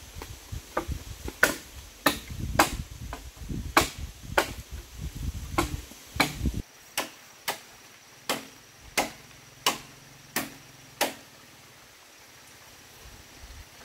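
Blade chopping into bamboo stems: sharp, even strikes about one and a half a second, stopping about 11 seconds in.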